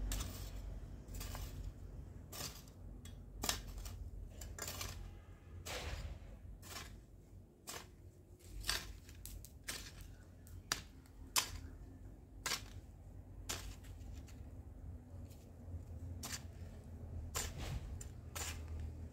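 Metal hoe blade chopping into and scraping dry, stony garden soil: sharp irregular knocks and scrapes, about one every half second to second, with a short pause about three-quarters of the way through.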